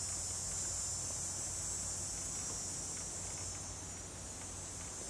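Steady high-pitched insect chorus, a continuous buzzing drone in the summer woods, with a faint low hum underneath.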